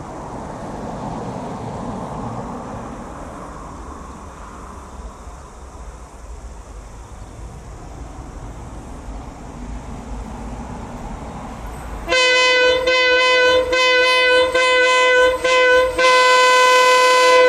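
KiwiRail DL class diesel-electric locomotive approaching, its MTU 20V 4000 engine a rumble that swells and fades. About twelve seconds in, the loud locomotive horn sounds in several short blasts with brief breaks, the last held for over a second.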